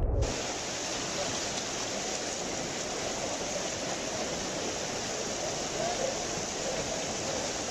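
Heavy rain and rushing floodwater in a flooded street at night, a steady hiss with no let-up.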